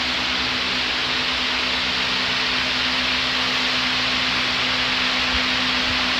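Large wall-mounted fan running: a steady rush of air with a constant low motor hum.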